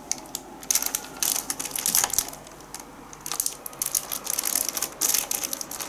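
Cellophane wrapping around a plastic tray crinkling and crackling as the package is picked up and handled, in irregular bursts with a short lull about three seconds in.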